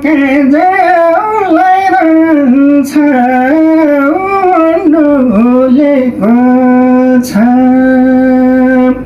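A man singing a Nepali folk song solo: a winding, ornamented vocal line that wavers up and down, then settles into two long held notes near the end. Two brief sharp clicks, about three seconds in and again about seven seconds in.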